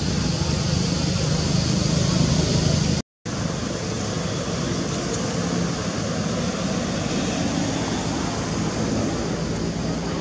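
Steady outdoor background noise, an even hiss with some low rumble, broken by a short gap of silence about three seconds in.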